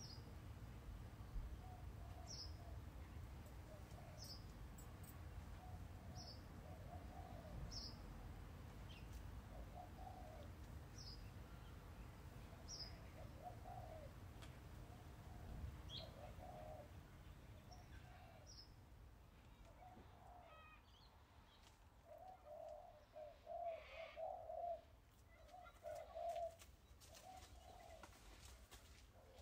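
Faint backyard birdsong. One bird repeats a short, high, falling chirp about every two seconds. Lower pulsed calls from another bird grow louder near the end.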